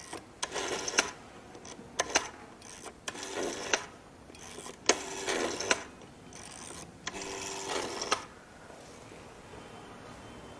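Hand crank of an antique wall-mounted magneto telephone being turned in about six short spurts, each a fraction of a second to about a second long, giving a rattling, ringing whirr with a click as each turn starts and stops. Cranking the magneto rings the line to call the exchange.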